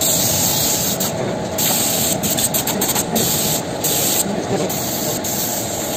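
Compressed-air paint spray gun hissing as it sprays matte black heat-resistant paint onto a motorcycle silencer, the hiss breaking off briefly several times as the trigger is let go.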